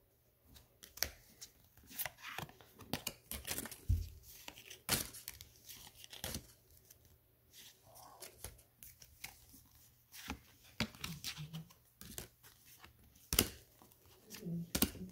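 Paper wrapper of a handmade trading-card pack being torn and the cards handled: a scattered run of crisp tearing, rustling and snapping sounds.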